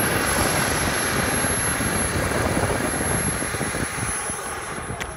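KingTech K60 model jet turbine running at high power as the L-39 rolls down the runway: a loud, steady rushing jet noise with a thin high whine on top, growing gradually fainter in the second half as the jet moves away.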